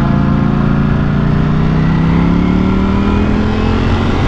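Ducati Panigale V4 S's V4 engine pulling under steady acceleration, its note rising slowly and smoothly in pitch, over a rush of wind noise.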